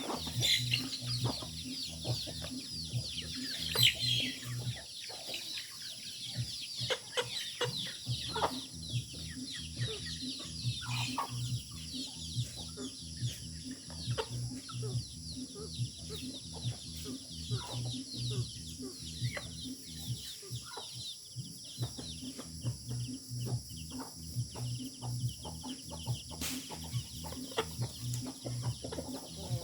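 A flock of chickens clucking, with many short calls scattered throughout and no steady rhythm.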